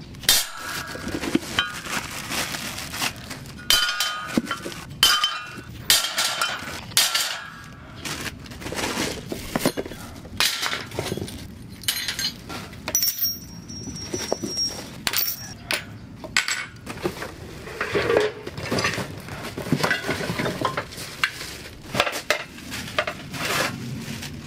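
Metal barbecue grill parts clinking and clattering as they are pulled from their packaging and set down, with a few pieces ringing briefly, and plastic wrap crinkling between the knocks.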